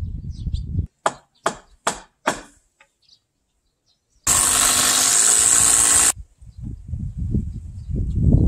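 Four sharp knocks about half a second apart on the wooden framing. Then a power drill runs for about two seconds, driving into the timber.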